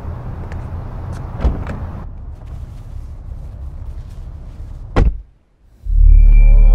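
A car door of a 2021 Mercedes-Benz S-Class shutting with one solid thud about five seconds in, over a steady low hum. After a moment of near silence, a loud deep rumble with steady tones above it swells up near the end.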